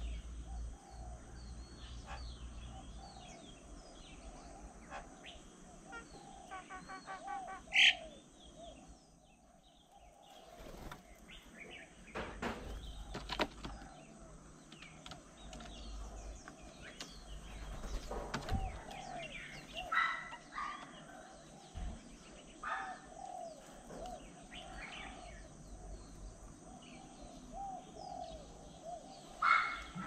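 Many birds chirping and calling around a feeder, with a repeated lower call running underneath. A few louder, sharper calls stand out, the loudest about eight seconds in and another near the end.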